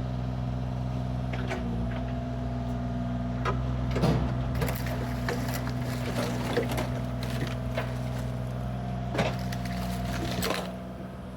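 Bobcat mini excavator's diesel engine running steadily, with scattered knocks and clatter from the demolition debris. The engine sound drops away near the end.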